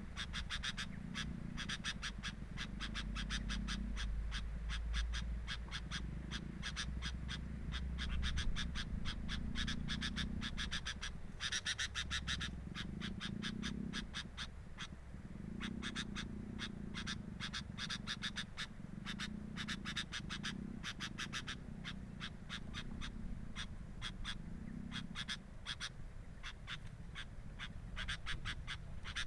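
A steady chorus of animal calls: rapid, even clicking over low croaking notes that repeat about once a second.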